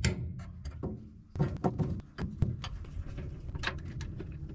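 Wrench on a hydraulic valve cartridge in a boom lift's valve block as it is loosened: a string of irregular metallic clicks and knocks, the loudest about one and a half seconds in.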